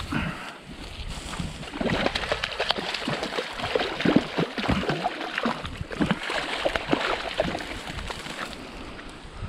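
A brown trout thrashing at the water's surface, splashing and sloshing irregularly as it is drawn into a landing net. The splashing picks up about two seconds in and dies down near the end.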